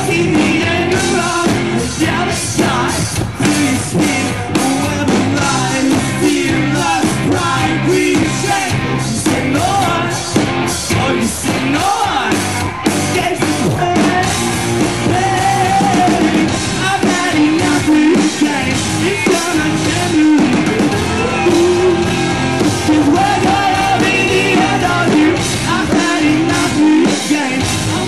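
A rock band playing live, with electric guitars, a drum kit and a voice singing, heard from among the audience.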